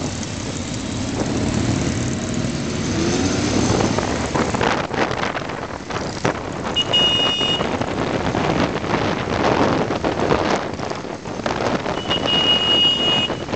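Motorcycle engines running while riding in a group, the engine note rising in the first few seconds, with wind buffeting the microphone. A high beep sounds twice, about seven seconds in and again near the end.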